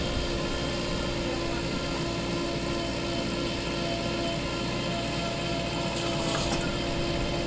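Heavy diesel machinery running steadily, an even engine drone with a constant whine over it. A short rushing noise comes about six seconds in.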